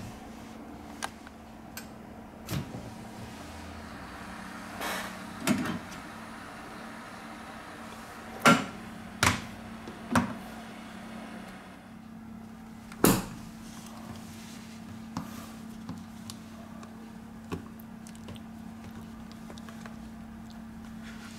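Scattered sharp clicks and taps from small tools and phone parts being handled during a smartphone teardown, loudest in a cluster of clicks around the middle, over a steady low hum.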